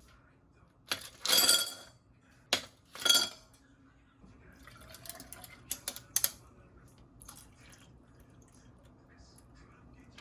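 Metal kitchenware clattering: two loud ringing knocks and scrapes, about a second in and again near three seconds, then a few lighter clicks around six seconds.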